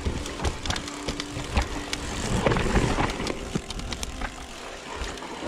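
Electric mountain bike riding down a rough dirt forest trail. Tyres run over the ground with frequent sharp knocks and rattles from the bike.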